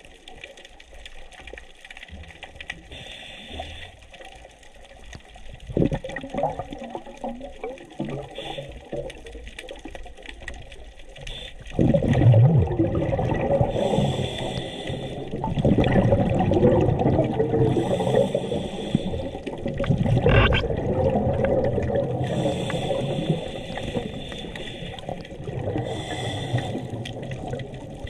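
A scuba diver breathing underwater: short hisses of the regulator on each inhale recur every few seconds, and exhaled bubbles rumble and gurgle past, louder from about twelve seconds in.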